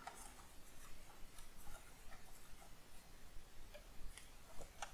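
Faint, scattered small ticks and scrapes of hands working at screws and parts inside the metal chassis of an Apple ProFile hard drive.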